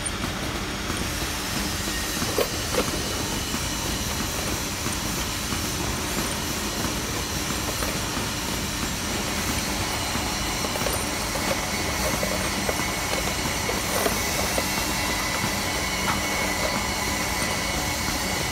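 Steady hum and rush of workshop machinery running, with a few light clicks of steel die parts being handled on the bench.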